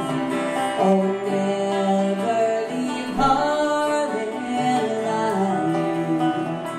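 Live band playing a slow country song: singing over amplified guitar.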